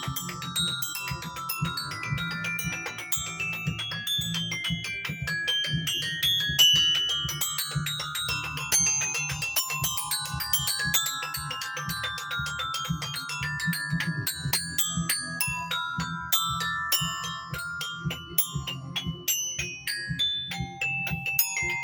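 Mallet percussion played fast: dense runs of short, bright, bell-like struck notes climbing and falling in pitch, over a low pulsing tone underneath.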